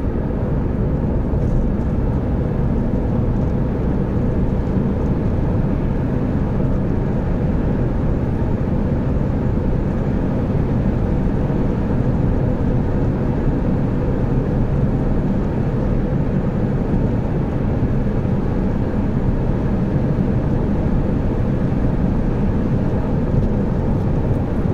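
Steady low rumble of a moving car's road, tyre and engine noise, heard from inside the cabin.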